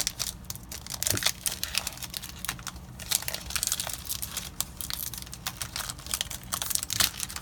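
Foil Magic: The Gathering booster pack wrapper crinkling in the hands as it is torn open, a dense run of irregular crackles and rustles.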